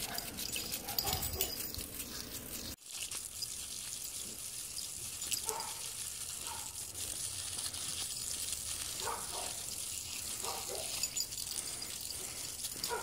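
Steady hiss of water spraying from a garden hose, with a wheaten terrier puppy giving several short yips at the spray.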